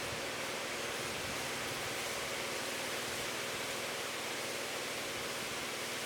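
Steady, even outdoor hiss with no distinct events in it.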